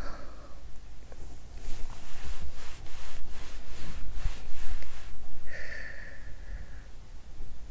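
Stomach and bowel sounds picked up by a lavalier microphone pressed against the belly: a quick run of gurgling pops, about three a second, then a high-pitched squeaky gurgle held for over a second in the last third. They are the sounds of a cramping stomachache on the second day of a period.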